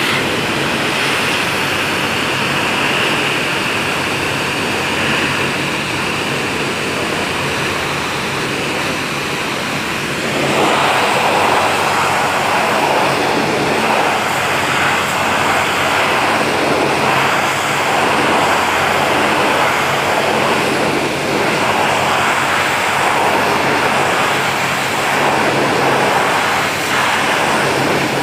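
Pressure washer running, its water jet hissing steadily as it blasts grime off a slatted bamboo floor, with a low steady hum underneath. About ten seconds in the spray grows louder and fuller and stays so.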